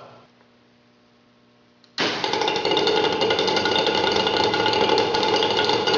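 About two seconds of faint hum, then an experimental rotary engine driving a generator cuts in suddenly, running loud and steady: a mechanical buzz with a fast rattle.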